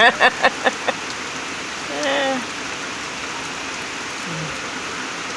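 Heavy rain falling steadily, an even hiss throughout. A voice sounds in quick short bursts in the first second, and briefly again about two seconds in.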